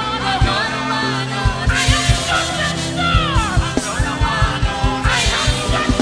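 Live gospel worship band playing an up-tempo medley, voices singing over a steady, driving kick drum beat.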